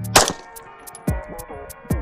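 Glock 17 9mm pistol firing a single sharp shot just after the start, part of a slow string paced about one shot a second, with fainter impacts later, over background music with a steady beat.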